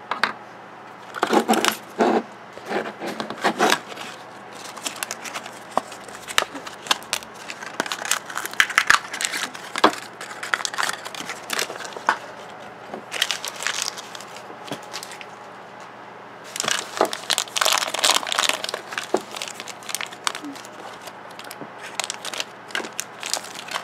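Plastic toy packaging being handled and opened: irregular crinkling and crackling of a clear plastic tube and a red plastic blind bag, with scissors cutting into the bag near the end.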